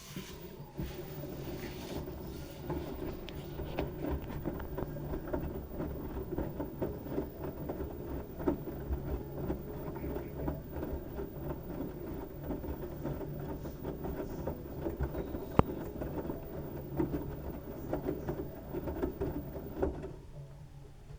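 LG washing machine running with a load of wet towels: a steady rumble from the drum with many small knocks and clatters, and one sharp click a few seconds before the end. It stops suddenly near the end.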